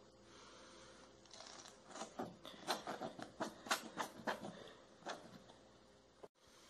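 Plastic squeeze bottle squirting milk onto a sponge cake layer to moisten it: a run of faint, irregular squishes and clicks that stops about five seconds in.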